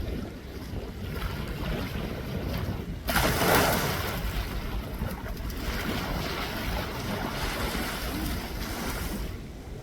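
Sea waves washing on the shore, with wind buffeting the microphone and a sudden louder rush about three seconds in.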